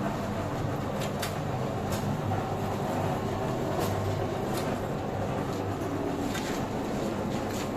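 Sinmag SM-307 long dough moulder running: a steady motor and roller rumble, with scattered short clicks or ticks from the machine.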